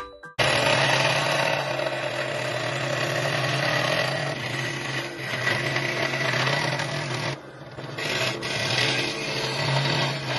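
Electric power tool working wood: a steady motor hum under a rasping grind, easing off briefly about seven seconds in.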